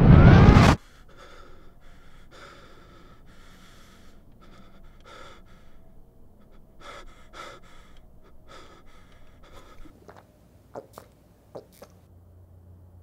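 A loud rising swell of music cuts off abruptly less than a second in. A man then breathes hard, gasping in and out repeatedly. Near the end come a few quick gulps as he drinks from a plastic jug.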